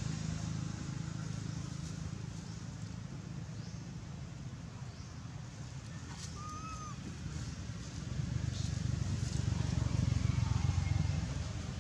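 Steady low rumble in the background, with a few faint rustles and one short high squeak about six seconds in.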